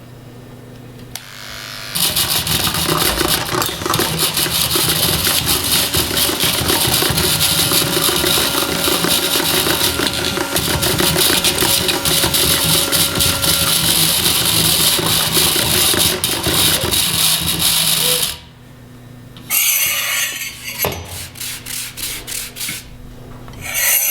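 Hand-made sound effects from a primary-school class: a loud continuous noise with a fast, rough texture lasts about sixteen seconds, then gives way to a few short bursts and a quick run of clicks.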